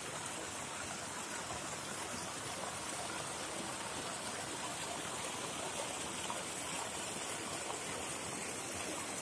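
Steady, even rush of running water, unbroken throughout.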